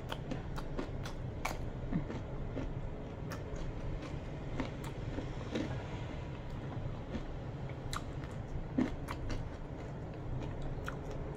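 Close-up chewing and crunching of crispy fried chicken skin in the mouth, with irregular crisp crunches.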